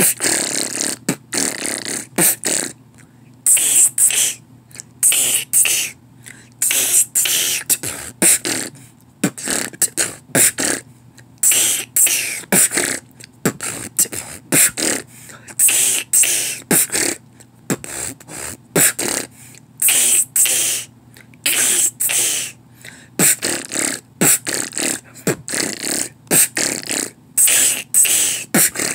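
A man beatboxing freestyle: fast percussive mouth sounds in a steady rhythm, many sharp hissing hits to the second.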